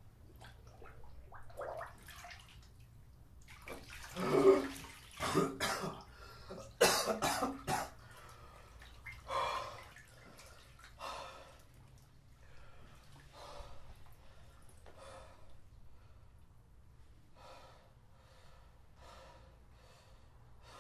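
A man coughing hard several times about four seconds in, then breathing heavily in slow, even breaths that fade gradually.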